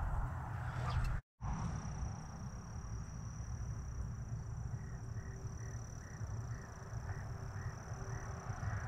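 Wind buffeting the microphone: a low, uneven rumble that cuts out completely for a moment about a second in. In the second half, faint short calls repeat about twice a second.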